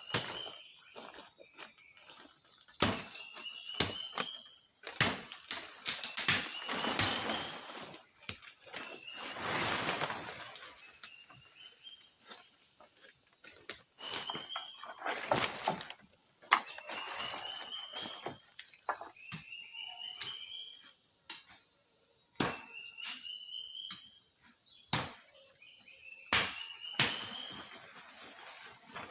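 Forest ambience: a steady, high-pitched insect drone, with a short rising call repeated every couple of seconds. Over it come irregular sharp knocks and snaps, the loudest sounds, and brief spells of rustling from someone working in the undergrowth.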